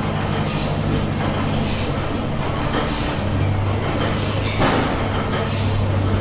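Antique stationary gas engines running together: a steady low hum with sharp, unevenly spaced exhaust beats.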